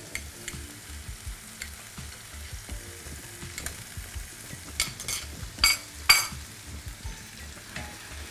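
Chicken pieces frying in spiced oil in an enamelled pan with a steady sizzle, stirred as curd goes in. About five seconds in, a spoon clinks sharply against a glass bowl several times in quick succession while the curd is scooped into the pan.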